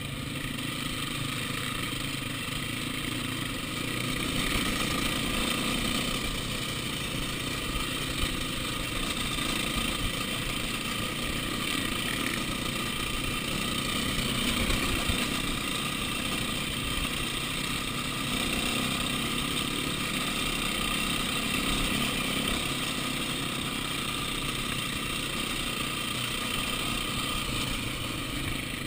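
Dirt bike engine running steadily as the bike rides along a rocky off-road trail.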